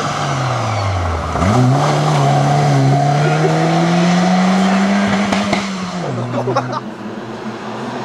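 Volkswagen Golf Mk2 rally car's engine: the revs fall, then rise sharply about a second and a half in and climb steadily as it accelerates away. Near the end the revs drop, with a few short cracks.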